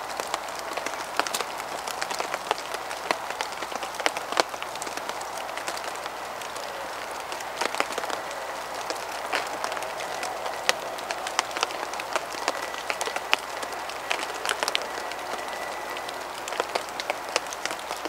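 Rain falling steadily in a forest: an even patter with scattered, irregular sharp drip ticks.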